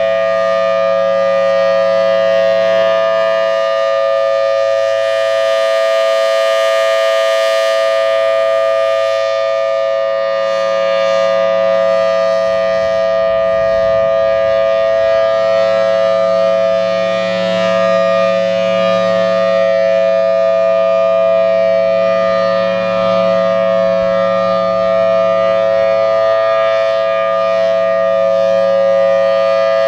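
Federal Signal Thunderbolt 1000T outdoor warning siren sounding the steady 3-minute alert signal, loud and unbroken. Its tone brightens and dulls at times as the rotating head turns toward and away.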